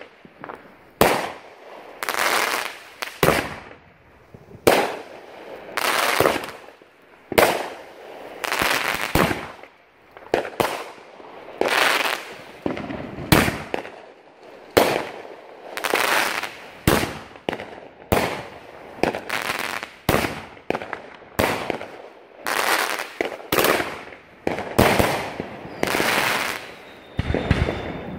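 Consumer aerial fireworks finale firing shot after shot, a sharp bang about once a second, each fading off before the next.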